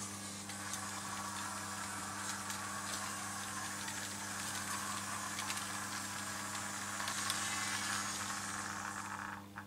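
Märklin H0 model train running on metal M-track: a steady rolling, rushing noise with faint clicks and a low hum beneath. The rushing drops away suddenly near the end.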